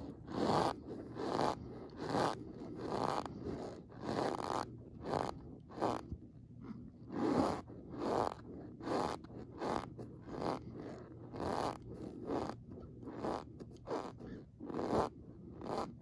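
Packed cornstarch squeaking and crunching as it is squeezed and pressed, in short crunches roughly two a second, with a brief lull about six seconds in.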